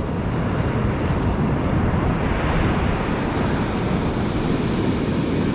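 Ocean surf breaking and foam washing up the sand, a steady rushing that swells about two seconds in, with wind buffeting the microphone.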